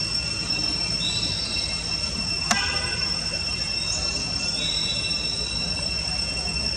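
Forest ambience: a steady high-pitched insect drone, with a few short high chirps and one sharp click about two and a half seconds in.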